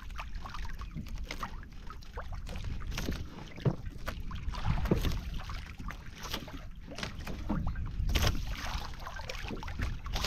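Wind buffeting the microphone over water lapping and splashing against the hull of a small outrigger boat at sea, an uneven, rushing noise with no engine running.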